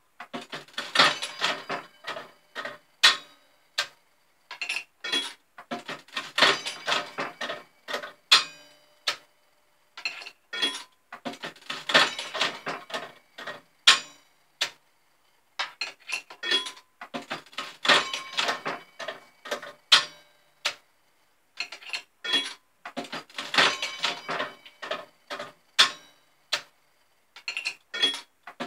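Aristocrat Arcadian electromechanical slot machine played again and again: each handle pull sets off a few seconds of dense clicking and clattering as the reels spin and clunk to a stop. A new round starts about every five to six seconds.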